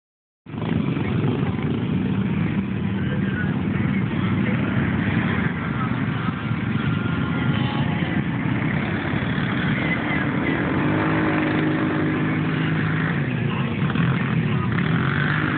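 Several ATV engines running together, with one nearby revving up and back down about two-thirds of the way through.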